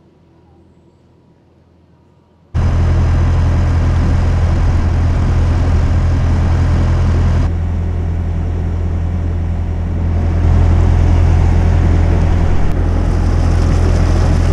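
Widebeam boat's engine running steadily under way, with the propeller wash churning behind the stern; a faint low hum for the first couple of seconds gives way suddenly to the loud, steady drone.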